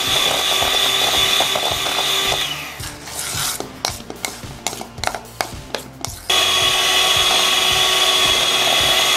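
Sayona electric hand mixer running with its beaters creaming butter and powdered sugar in a steel bowl, a steady whine. It winds down about two and a half seconds in. A silicone spatula then scrapes and taps around the bowl, and the mixer starts up again about six seconds in.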